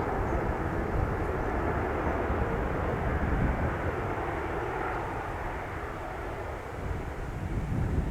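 Jet airliner's engine noise, a broad steady roar that slowly fades as the plane moves away, over a low rumble of wind on the microphone.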